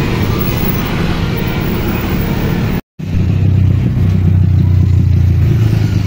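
Road traffic: a tour bus driving past among motorcycle and car engines. The sound cuts out for a moment about three seconds in, then a deep steady engine drone of an approaching bus and scooters takes over.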